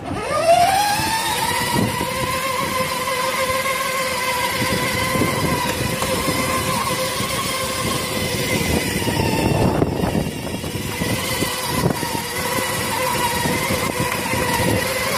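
Electric drive motor of a battery-powered ride-on toy quad whining as it pulls away, rising in pitch over the first second and then holding steady, with its hard plastic wheels rumbling over the concrete footpath.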